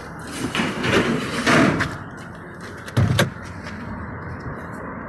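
Chery Tiggo 7's driver's door being unlatched and swung open: a stretch of handle and latch noise in the first two seconds, then a dull thud about three seconds in.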